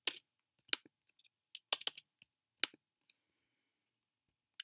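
A handful of sharp, separate clicks from a computer keyboard and mouse, spaced unevenly, as a spreadsheet value is copied and pasted.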